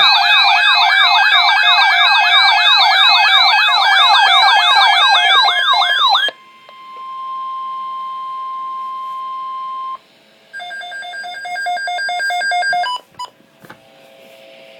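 Emergency alert tones: several siren-like tones sweep up and down together for about six seconds, then a single steady tone near 1 kHz, the NOAA Weather Radio warning alarm tone, holds for a few seconds and stops. A run of rapid electronic beeps follows, ending in a click and a brief tone, then faint radio hiss.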